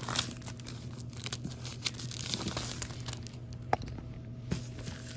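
Plastic shrink wrap being torn and pulled off a large cardboard game box, crinkling continuously with a few sharp snaps.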